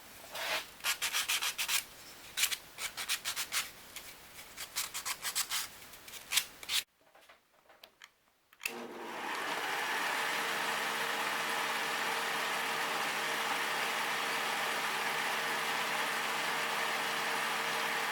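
Hand sanding or rubbing on a wooden piece, a run of quick irregular strokes. After a short pause, about nine seconds in, an electric shop tool's motor comes up to speed and runs steadily with a low hum.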